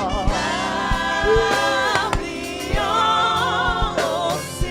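Live gospel choir singing a worship song with vibrato voices over sustained keyboard chords and a steady drum beat.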